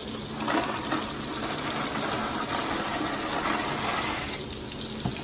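Kitchen faucet running, a steady rush of water that comes up about half a second in and stops about four seconds later.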